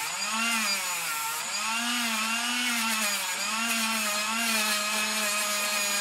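Dremel rotary tool with a wire wheel running, its whine wavering up and down in pitch as the wheel brushes the silicone rubber coating off the end of an outdoor LED strip.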